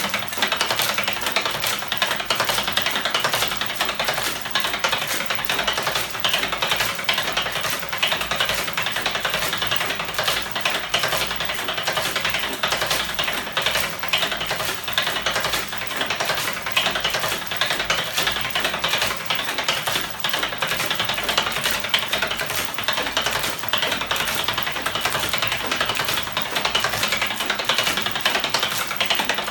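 Homemade battery- and electric-motor-driven magnet 'ornithopter' engine running at speed: its crankshaft, swinging arms and linkages make a fast, continuous clatter of dense clicks, steady throughout.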